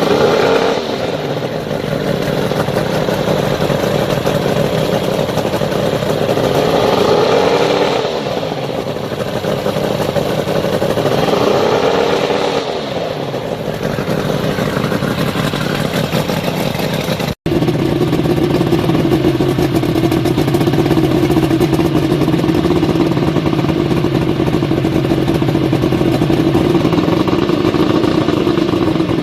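Mercury 140 hp inline-six two-stroke outboard running, with the throttle opened and let back down twice so the engine note rises and falls; after a brief break it runs at a steady speed.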